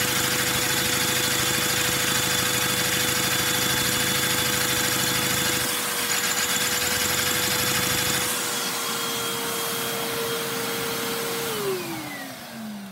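Vacuum cleaner running steadily with a high whine and hiss, supplying suction to a Lego two-cylinder vacuum engine. Near the end the vacuum's motor is switched off and winds down, its whine falling steadily in pitch.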